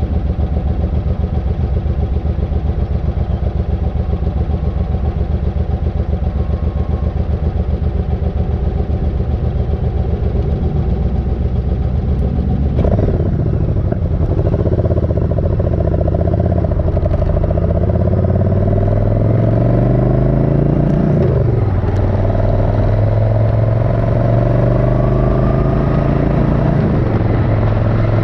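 Suzuki Intruder 1400 motorcycle's V-twin engine running steadily at low speed. About halfway it pulls away with rising pitch, drops back once as it shifts gear, then rises again.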